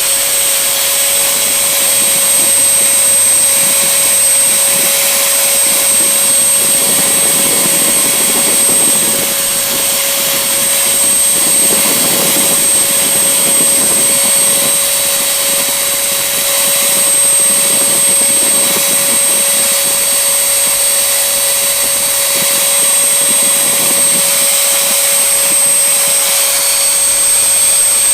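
Bosch BGL42530 vacuum cleaner motor running steadily and loudly: a rush of airflow with a constant mid-pitched hum and a thin, high whine above it.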